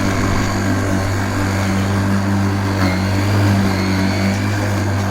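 Worx 40 cm cordless battery lawnmower running steadily, its electric motor and blade giving a steady hum that swells slightly about three and a half seconds in.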